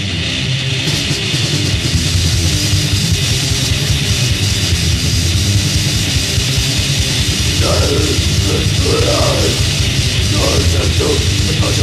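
Old-school death metal demo recording: heavily distorted electric guitars, bass and drums playing together, with a deep growled vocal coming in about two-thirds of the way through.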